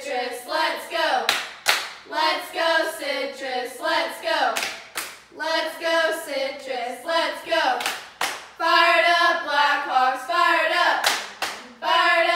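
A group of girls chanting a cheer in unison in a sing-song rhythm, punctuated by a few sharp hand claps between phrases.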